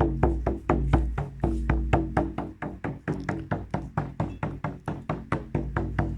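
A drum beaten in a steady, fast rhythm, about four to five strokes a second, with a low ringing tone under the beats.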